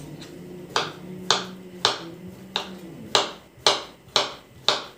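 Kitchen knife cutting a zucchini into chunks on a wooden cutting board: eight sharp knocks of the blade hitting the board, about two a second.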